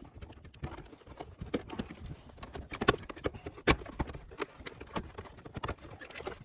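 Irregular clicks and clunks of the stock shifter assembly being worked loose by hand, the lever and linkage knocked back and forth, with a few sharper knocks.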